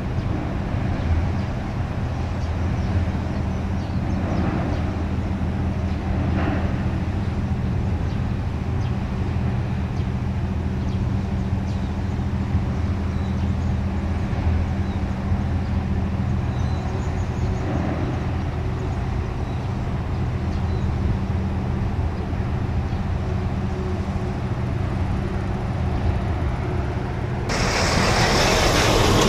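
Steady low engine hum under road-traffic noise, swelling near the end as a vehicle passes close.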